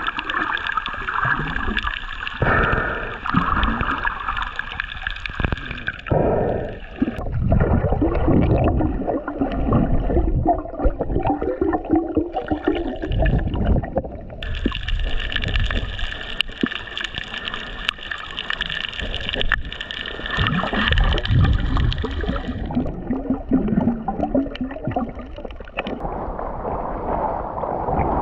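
Seawater gurgling and sloshing around a submerged action camera, muffled and uneven, with bubbles, as a snorkeller swims. Near the end the sound turns to a steadier wash of water.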